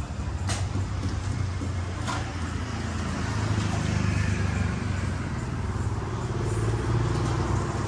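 Road traffic passing on the street, a steady engine rumble, with two light clicks about half a second and two seconds in.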